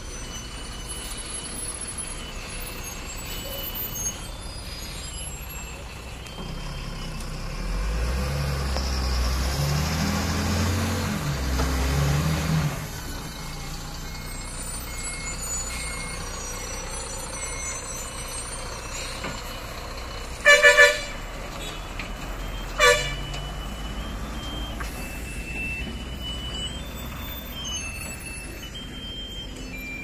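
A heavy lorry's diesel engine rumbles as it works round a hairpin bend, its note swelling for several seconds about a third of the way in. About two-thirds of the way in an air horn sounds two quick blasts, then one more short blast about two seconds later; these are the loudest sounds.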